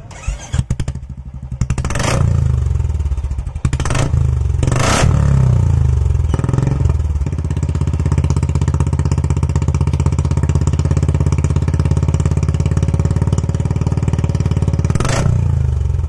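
Royal Enfield Classic 350's single-cylinder engine breathing through a short-bottle 'Chhota Punjab' free-flow silencer. It starts and catches within the first two seconds and is blipped sharply a few times. It then settles into a loud, even thumping idle, with one more throttle blip near the end.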